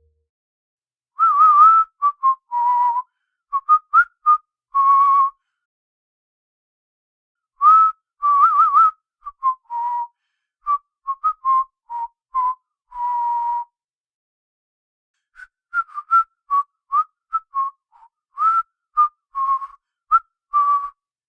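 A man whistling a tune through his lips: short, clear notes and little trills in three phrases, with brief pauses between them.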